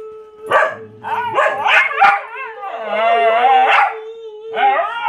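A dog yapping in short barks, then a long wavering howl about three seconds in, with a person's voice joining in.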